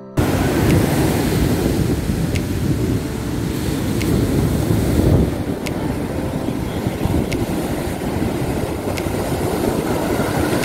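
Ocean surf breaking and washing on a beach, a steady rush with a heavy low rumble, with wind buffeting the microphone.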